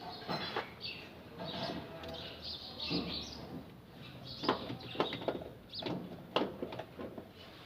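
Scattered metallic clinks and knocks of hand tools against metal while a Toyota Hilux starter motor is being fitted, a few louder ringing knocks from about halfway through. Birds chirp in the background.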